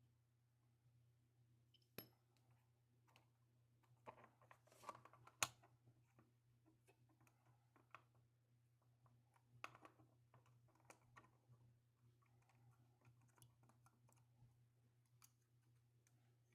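Faint scattered clicks and taps of small camera parts being handled during disassembly, over a low steady hum. The sharpest click comes about five and a half seconds in.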